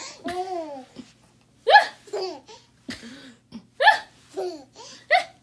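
A baby laughing in short, high-pitched bursts as he is tipped backward, three of them loud, with a woman laughing along.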